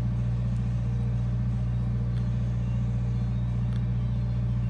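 Steady low electrical hum from machinery running in the shop, unchanged throughout.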